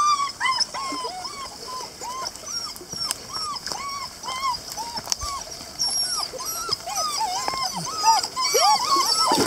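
Two-month-old puppies whimpering over and over: short, high, arched whines about two a second, with several overlapping near the end.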